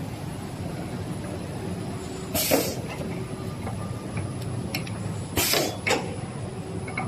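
Rotary cable stripping machine running with a steady low hum, with two short bursts of hiss about three seconds apart and a few light clicks as it works through the cable.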